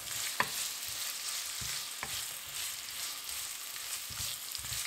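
Sliced onions, garlic and turmeric sizzling in sesame oil in a non-stick wok, with a steady hiss, while a wooden spatula stirs them, scraping and giving a few light taps against the pan.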